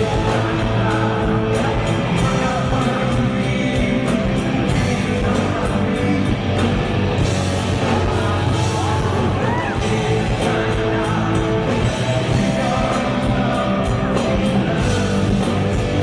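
Live rock band playing at full volume: electric guitars and drums with a steady beat, and a male lead vocalist singing over them.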